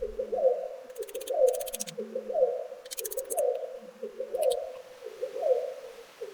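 A bird repeating a low, hooting call note about once a second, in a steady series. Short bursts of rapid high-pitched ticking cut in a few times.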